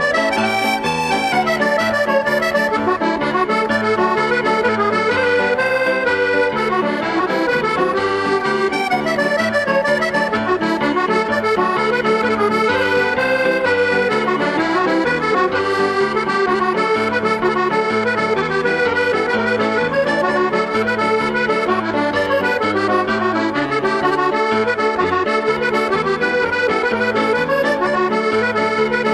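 Background music: a lively Irish traditional tune on accordion, over a steady held bass note.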